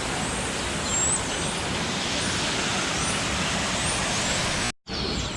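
Steady rushing background noise with faint, short, high chirps of small birds, Taveta golden weavers, scattered through it. The sound drops out completely for a moment near the end.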